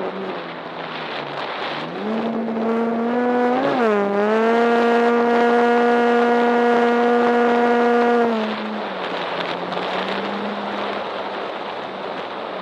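Engine of a radio-controlled model aerobatic aeroplane in flight: its note climbs in pitch about two seconds in, wobbles briefly, holds steady and loudest for about four seconds, then drops lower toward the end.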